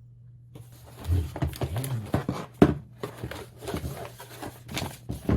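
Unboxing handling sounds: a string of light irregular clicks, taps and rustles as packaging and the charging cable are handled and set aside.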